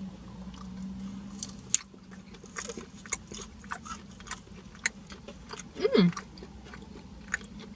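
Close-up chewing and biting of food, with scattered sharp crunches and mouth clicks. A brief hum of a voice about six seconds in.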